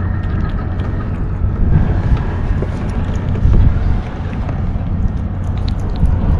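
Wind rumbling steadily on the microphone, with faint crunching clicks of a kitten chewing dry cat food close by.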